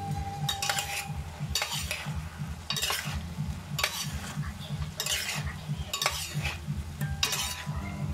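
Large metal spoon scraping and tossing shrimp, squid and vegetables around a hot steel wok, one stroke about every second, with the food sizzling as it stir-fries.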